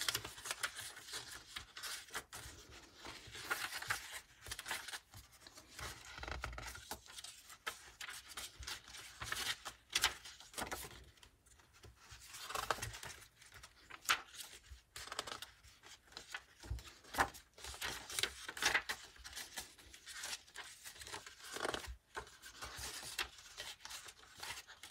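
Pages of a handmade junk journal of paper, card and envelopes being turned and handled: irregular paper rustling, rubbing and flapping.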